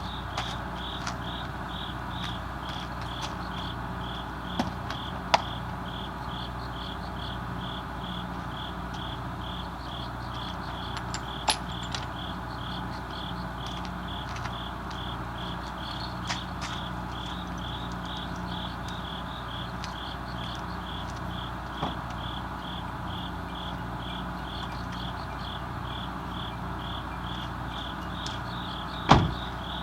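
A cricket chirping steadily, about two chirps a second, over a low steady background. A few sharp clicks or knocks break in, the loudest near the end.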